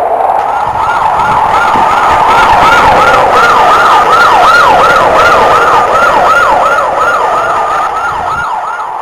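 Siren wailing in a fast yelp, its pitch sweeping rapidly up and down about two to three times a second over a background hiss, fading toward the end.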